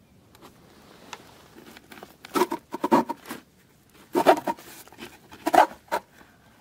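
A thin wooden board being slid off a small wooden box, wood scraping on wood in three rough bursts starting about two seconds in.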